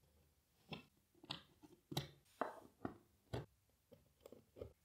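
Metal cam lock nuts being set by hand into the holes of IKEA Alex particleboard panels: about nine faint, irregular clicks and taps.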